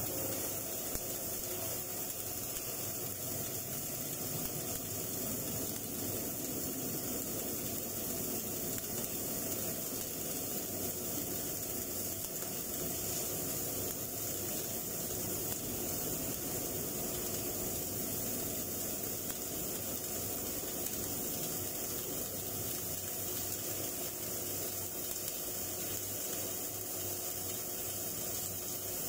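Welding arc burning on an overhead steel butt joint, a continuous even hiss without a break.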